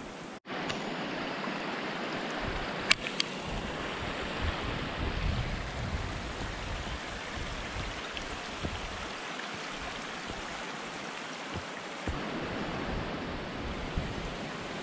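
Steady rushing wind noise on the microphone while walking a forest trail. A pair of sharp snaps about three seconds in is the loudest moment, and a few fainter ticks follow later.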